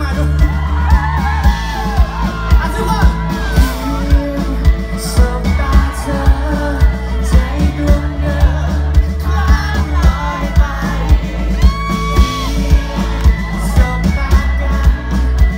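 Live rock band played loud through a PA: a male lead singer sings over electric guitar and drums, with a steady pounding beat.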